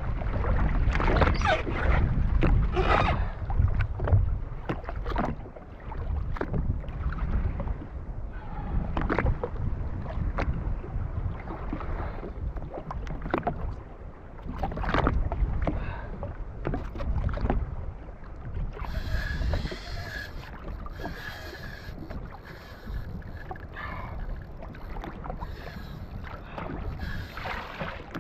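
Water slapping and splashing against a jet ski's hull, with wind buffeting the microphone and a brighter hiss in the latter part.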